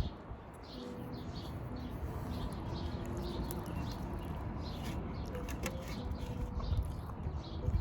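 Small birds chirping over and over in the background, short high calls several times a second, with a sharp click or two a little after halfway.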